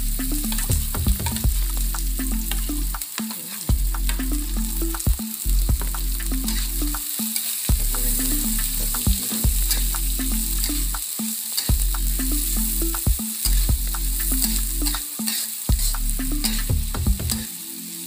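Diced onion and chopped chilies sizzling in hot oil in a wok, with a spatula stirring and clicking against the pan. A low hum in stepped tones comes and goes every few seconds underneath.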